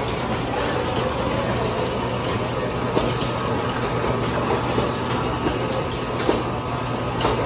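Electric meat grinder's motor running with a steady low hum, with a few light clicks and knocks over it.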